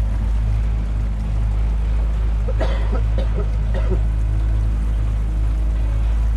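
Fishing boat's engine running steadily, a low even drone, with water noise. A few short higher-pitched sounds about three seconds in.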